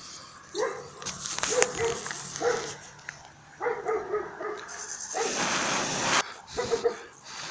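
A dog giving many short, repeated yelps and barks, with a loud rush of noise about five seconds in.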